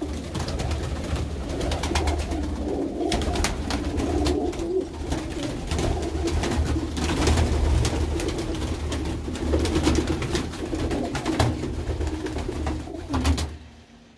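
A flock of crested domestic pigeons cooing together, many birds overlapping into a continuous sound, with scattered sharp clicks. The sound drops off sharply about a second before the end.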